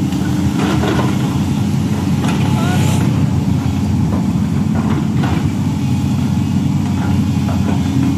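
LiuGong crawler excavator's diesel engine running steadily under working load as the arm and bucket move, with a few short clatters and cracks along the way.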